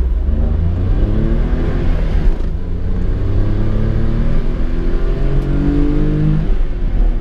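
A 1993 Honda Today Pochette's 660 cc three-cylinder engine, heard from inside the cabin, accelerating through the gears of its manual gearbox. The engine note climbs, breaks off at an upshift about two and a half seconds in, climbs again, and drops suddenly with another upshift near the end.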